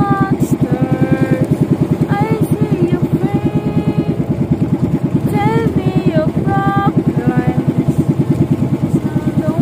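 Engine of a motorized outrigger fishing boat running steadily under way, a fast, even beat. A song with a singing voice plays over it.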